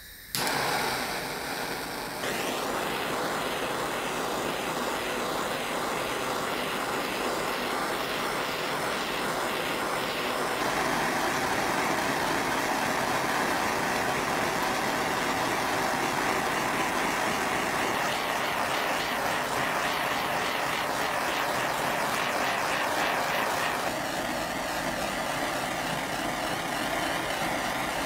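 Propane torch lit right at the start, then burning with a steady hiss as its flame is played over a figured maple bowl turning on a lathe, with the lathe running underneath.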